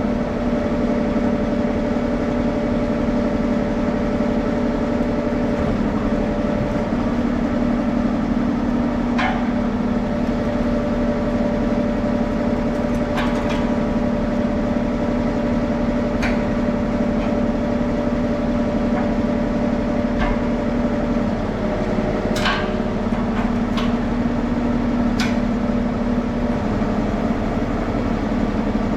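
An engine running at a steady idle, with a few sharp clicks and knocks from tools or metal parts, the loudest about two-thirds of the way through.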